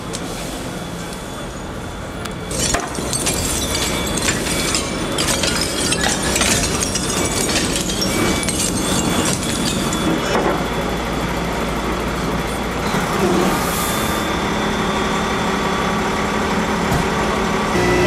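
Fire trucks' engines running steadily in the street, with scattered short knocks and crackles through the first half.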